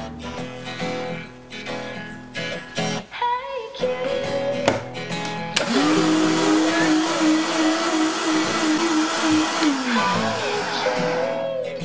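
Countertop blender running for about four seconds, a little past halfway in, mixing a liquid mixture. Its motor hum climbs as it spins up and drops away as it winds down. Acoustic guitar music plays throughout.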